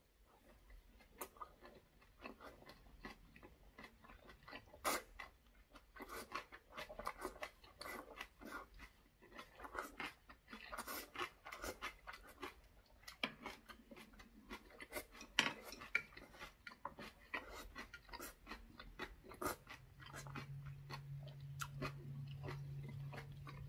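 Close-up chewing of braised saury and aged kimchi: many soft clicks and wet smacks from the mouth, irregular and close together. A low steady hum comes in about twenty seconds in.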